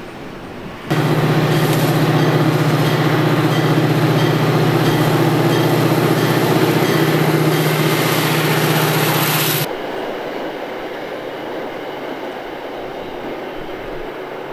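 Passenger train passing directly underneath: a loud rumble with a steady low hum starts suddenly about a second in. It drops off sharply about nine seconds later, leaving a fainter rumble as the train moves away.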